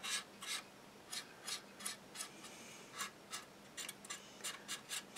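Cotton bud rubbing over a plastic model tank's hull in short, irregular strokes, about three a second, wiping excess wash off the raised surfaces.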